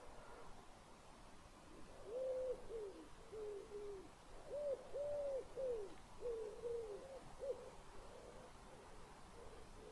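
A bird calling in a run of low hooting notes, each short and dropping in pitch at its end, starting about two seconds in and fading out after about five seconds.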